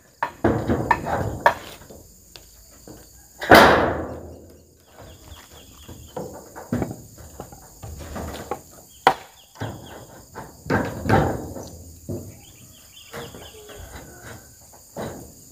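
Irregular knocks and bangs from corrugated zinc roofing sheets being handled and fitted, with one loud clattering bang about three and a half seconds in. Insects drone steadily behind.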